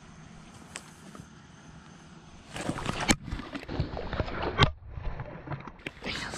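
Quiet outdoor hush with a single click about a second in, then, from about two and a half seconds in, loud rustling, scraping and knocking as clothing and fishing gear rub and bump against a body-worn camera while the angler moves and crouches on the bank, with one sharp knock near the middle.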